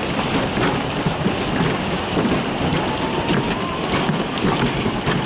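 The Whip amusement ride in motion: the car rolling and being towed around the track, a steady clattering rumble with scattered clicks. A faint rising tone comes through near the middle.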